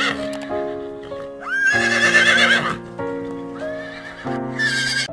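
A horse whinnying three times, the longest call about two seconds in, over background music.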